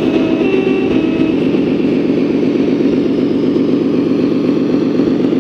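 Simulated diesel truck engine from a model Scania's sound module, idling with a steady, fast-pulsing rumble. A short repeating beep sounds over it and stops about a second and a half in.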